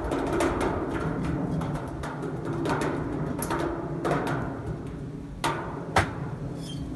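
Pieces of iron being struck, making irregular metallic clanks, some with a short ringing tone, and two louder strikes near the end.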